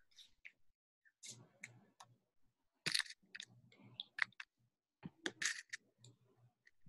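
Faint, brief overlapping voices of several people over a video call saying goodbye, broken up by several sharp short clicks.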